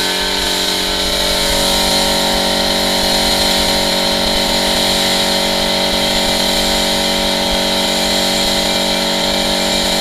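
A motor-driven workshop machine running steadily at a constant speed: an even hum with a hiss on top.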